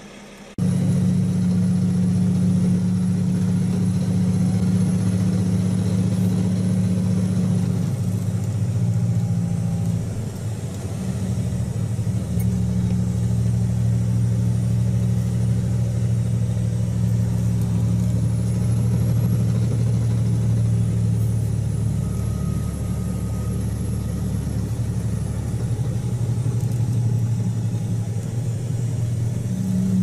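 Steady drone of a road vehicle's engine, heard from a vehicle following a loaded logging truck along a winding road, with a faint high whine above it. The drone cuts in suddenly at the start and shifts in pitch about ten seconds in.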